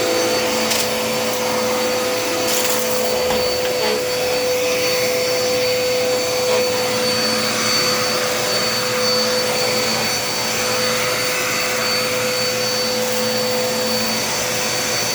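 Dirt Devil vacuum cleaner running steadily with a constant motor whine, with a couple of brief crackles in the first few seconds as dirt is sucked up.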